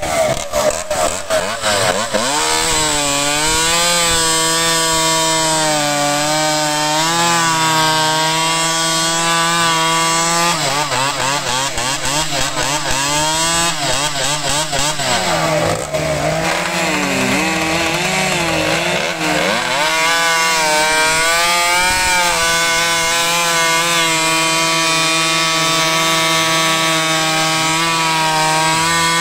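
Big piped and ported two-stroke chainsaw with a tuned expansion-pipe exhaust, cutting through a thick log at high revs. The engine note holds steady in the cut, wavers and dips through the middle stretch, then settles back to a steady pitch for the last several seconds.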